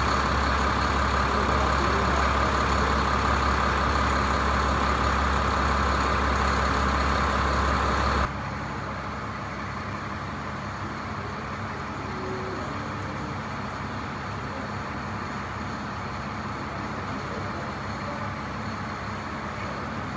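A large vehicle's engine idling steadily with a deep, even drone, which cuts off abruptly about eight seconds in, giving way to a quieter steady indoor room hum.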